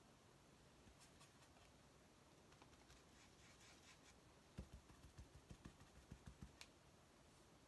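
Near silence with the faint scratching of a paintbrush working paint across the painted surface. A little past the middle comes a quick run of about a dozen soft taps over two seconds.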